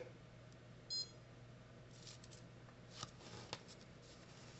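Mostly quiet workbench with a steady low hum. About a second in comes one short high electronic beep from the pulse arc welder, and later a few faint small clicks and taps as the nib parts are handled.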